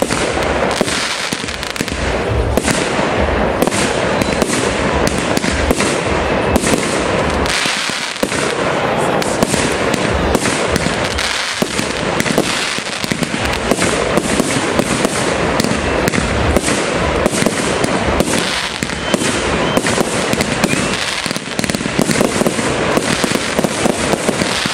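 Fireworks display in a dense barrage: rising shells and bursts going off in rapid succession, many bangs a second over a continuous din.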